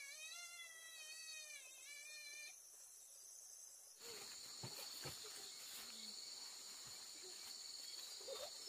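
A cat meowing: one long, wavering meow lasting about two and a half seconds, over the steady high chirring of insects. After that only the insects are heard, with a few faint short chirps near the end.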